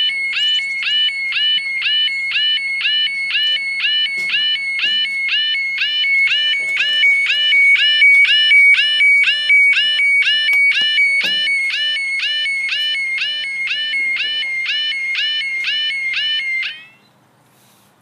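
Level crossing's electronic warbling alarm sounding to warn of an approaching train, a short chirping tone pattern repeating about twice a second with a thin high whistle above it, that cuts off about seventeen seconds in.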